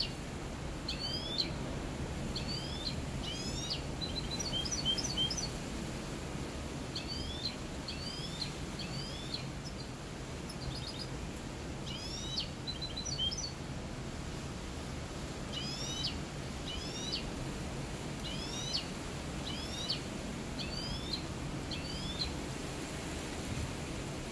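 Caged mixto, a finch-and-canary hybrid songbird, singing in short phrases of two to four quickly rising notes with brief pauses between phrases, now and then a fast trill; a song its owner calls clean (cante limpio).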